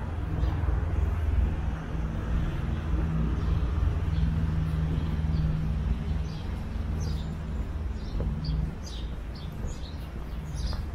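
A motor vehicle's engine running close by with a steady low hum, fading away about nine seconds in. Small birds chirp in the second half.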